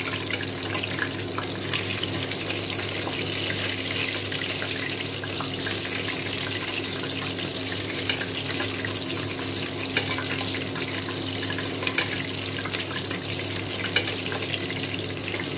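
Half a chicken deep-frying in shallow hot oil in a stainless steel pot: a steady sizzling crackle with scattered sharper pops as hot oil is spooned over the part of the chicken above the oil. A low steady hum runs underneath.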